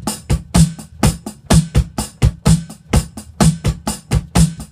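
Drum kit playing a steady club-style groove: hi-hat strokes about four a second, with snare and bass drum added in.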